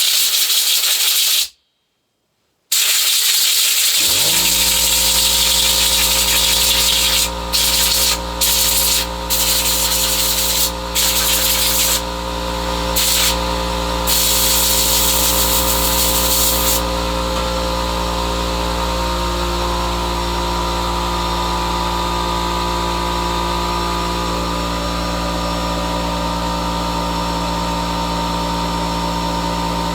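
Compressed air hissing from a blow gun in repeated blasts as the chainsaw carburettor is blown clean, cutting off briefly several times. About four seconds in, the air compressor's motor starts and runs steadily with a low hum beneath the hiss.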